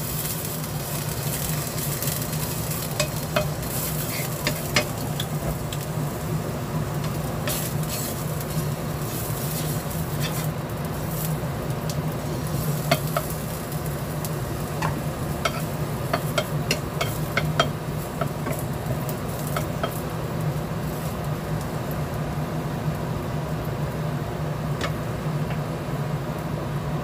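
Ginger slices sizzling in a little oil in a nonstick frying pan, stirred with a wooden spatula that taps and scrapes against the pan now and then, over a steady low hum.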